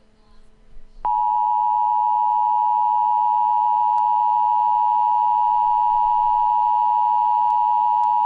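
Emergency Alert System two-tone attention signal: a loud, steady dual-pitched tone that starts abruptly about a second in and holds unbroken. It is the alert tone that warns an emergency message is about to be read.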